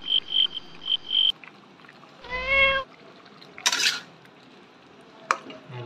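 A cat meows once, a short call rising slightly in pitch about two seconds in. Before it a high tone beeps four times, and after it comes a brief scrape like a metal spatula against the kadai.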